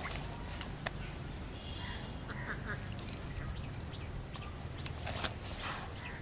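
Ducks quacking a few short times around the middle. Sharp clicks and rustling come from fish being handled into a plastic mesh bag, the loudest at the very start and about five seconds in.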